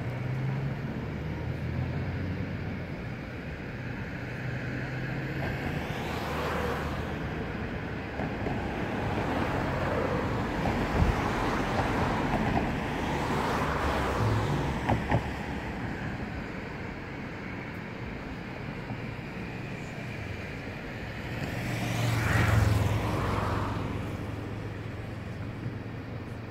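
Steady urban traffic rumble with a low hum. Vehicles pass close three times, each swelling and fading within a couple of seconds, the loudest near the end, and a few sharp clicks come in the middle.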